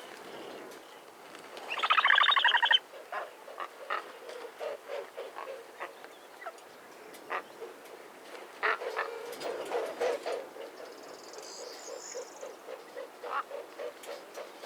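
Vulture calls: a loud, rapidly pulsed rasp lasting about a second, about two seconds in, followed by scattered short calls and clicks and a soft quick pulsing in the second half.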